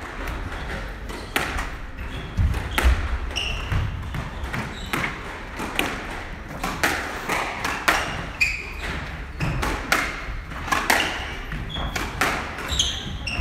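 A squash rally: the ball cracks off rackets and the walls in an irregular run of sharp hits, with short high sneaker squeaks on the wooden court floor between them.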